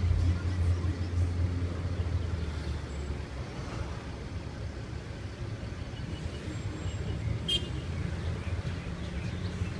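Low steady hum of vehicle engines idling in stopped traffic, strongest for the first three seconds and then easing to a quieter rumble. A brief high squeak sounds about seven and a half seconds in.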